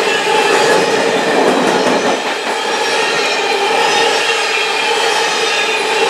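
Coal train's cars rolling past at close range: wheels clattering over the rails, with steady ringing tones held over the rumble.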